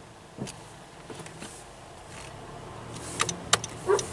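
Low, steady hum of a car's engine and cabin while waiting at a traffic light. Light clicks and knocks come more often in the last second.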